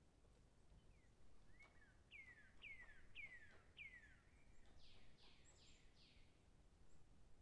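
Faint birdsong: a run of four clear whistles, each sliding down in pitch, about two a second, followed by four rougher descending notes.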